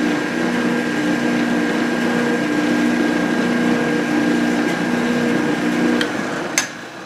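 Metal lathe switched on and running without cutting: its electric motor and spindle hum steadily as the faceplate and lathe dog turn the work between centres. About six seconds in the motor is switched off and the machine winds down, with a sharp click shortly after.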